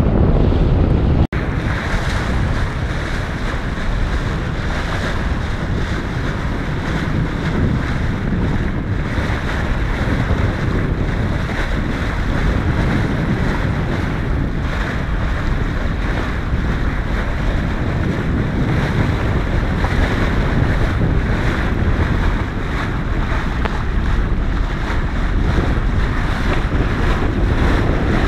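Wind buffeting the microphone over the rush of the bow wave along a sailing yacht's hull under sail: a steady, loud, rumbling noise. It breaks off for an instant about a second in, then carries on.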